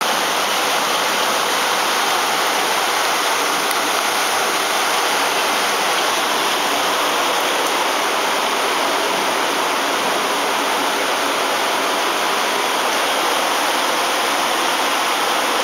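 Steady rush of heavy rain and running floodwater, an even hiss that doesn't change.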